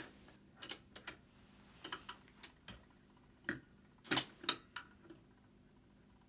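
Hacker Cavalier GP15 record player's autochanger working through its cycle: a string of irregular mechanical clicks and clunks as the single drops from the spindle onto the turning platter and the tonearm swings over onto it. The motor hums faintly underneath, and the loudest clunks come about four seconds in.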